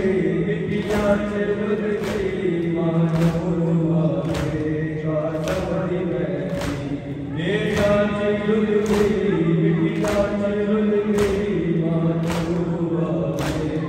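A group of men chanting a noha lament in unison, with a sharp chest-beat (matam) of many hands striking chests together about once a second, keeping time with the chant.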